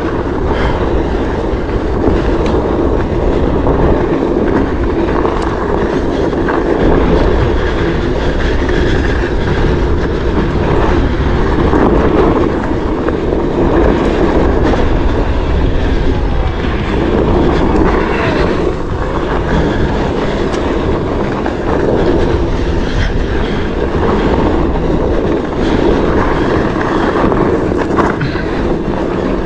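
Onewheel ridden fast down a dirt trail: a steady rushing noise of wind on the microphone and the board's single tyre rolling over dirt and gravel.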